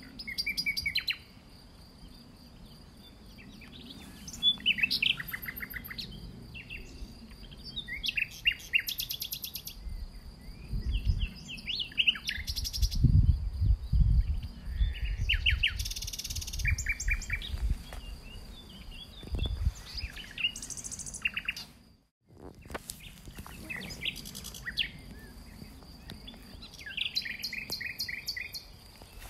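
Several songbirds singing outdoors in short, varied phrases of chirps and trills, one after another throughout, over a steady high insect-like note. A low rumble comes and goes between about ten and twenty seconds in, and the sound drops out briefly a little after twenty seconds.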